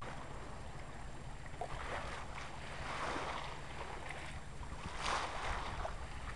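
Water rushing and splashing along the hull of a 1964 Mercator Offshore 30 sailboat under sail, over a steady low wind rumble; the wash swells twice, about three and five seconds in.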